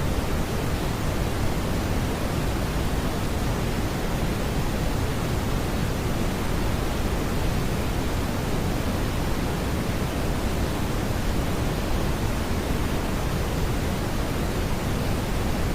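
Steady, smoothed brown noise: an even rushing hiss weighted to the low end, with no tones, beats or changes.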